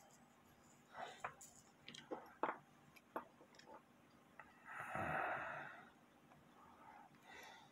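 Small metal clicks and taps from hands and a tool working a clock movement and its coil spring, then, about five seconds in, a heavy breath out lasting about a second, the loudest sound, with a softer breath near the end.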